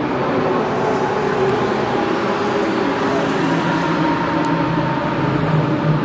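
Lamborghini Essenza SCV12's naturally aspirated V12 engine running steadily at low revs.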